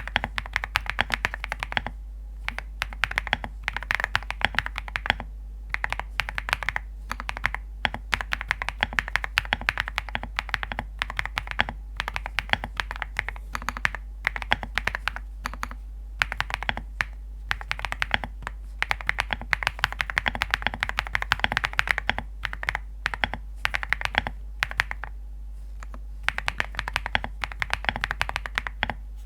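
Typing on a fully foamed ZOO65 mechanical keyboard with Graphite Gold switches: quick runs of clicky keystrokes with brief pauses, a small stone-like tapping.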